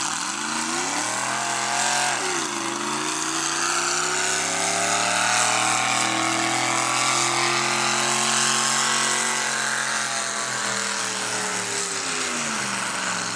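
Modified pulling tractor's engine at high revs under heavy load as it pulls the sled down the track. It climbs in pitch, drops sharply about two seconds in, climbs again and holds high, then falls away near the end as the pull winds down.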